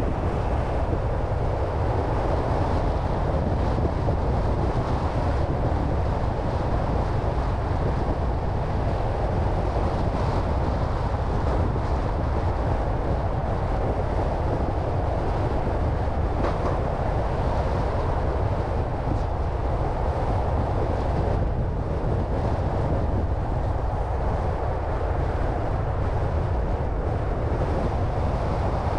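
Steady road noise from a car being driven: low tyre rumble with wind rushing past, even throughout.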